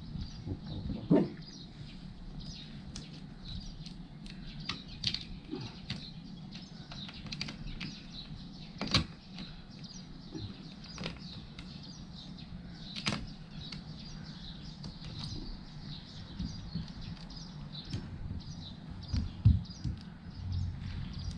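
A hand rubbing and pressing a vinyl decal onto a plastic kayak hull: faint rubbing with scattered short clicks and taps, two of them louder about nine and thirteen seconds in.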